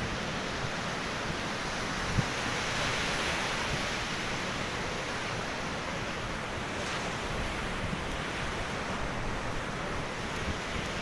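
Ocean surf breaking on a sandy beach, a steady wash of waves, with a brief thump about two seconds in.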